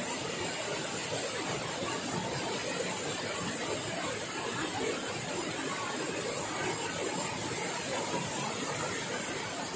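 Steady rush of flowing stream water, an even hiss with no change.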